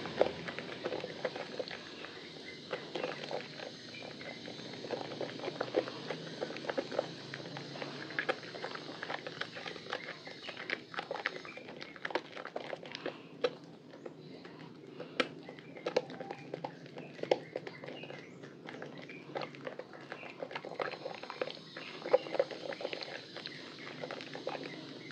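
Soaked, softened bar of Lervia milk soap squeezed and kneaded in wet hands in a basin of foamy water: continuous wet squelching with many sharp, irregular clicks and crackles from the lather.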